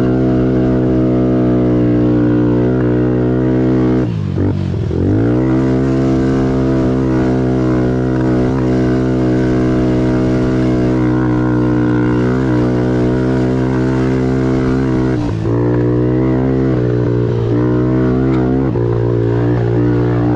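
Kawasaki KFX 90 youth quad's small four-stroke single engine running hard at high, nearly constant revs through its CVT, heard close from the machine. About four seconds in the revs drop sharply off the throttle and climb back; there are brief dips again late on.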